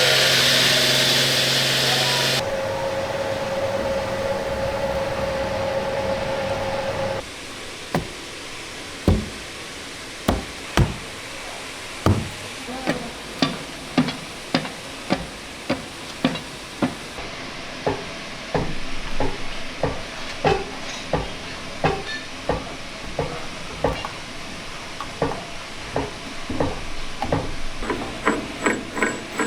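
A loud hiss with a steady hum, then from about seven seconds in a long run of sharp knocks. The knocks are irregular at first and quicken to several a second near the end.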